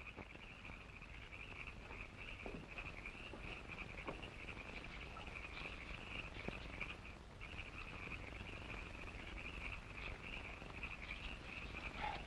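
A steady, high-pitched trilling night chorus used as night-time ambience. It breaks off for a moment about seven seconds in, and a few faint clicks sound over it.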